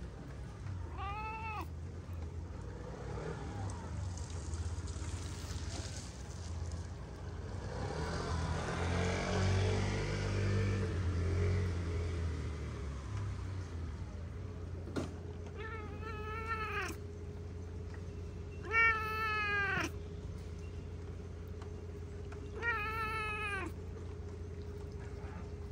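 A cat meowing four times, each meow rising then falling in pitch: a short one about a second in, then a long drawn-out meow and two more in the second half, the third the loudest. A low steady rumble runs underneath, louder in the middle.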